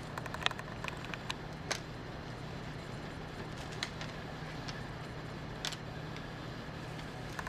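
Scattered light clicks and taps as a Maine Coon kitten scampers and pounces at a feather wand toy on a wooden floor, over a steady low hum.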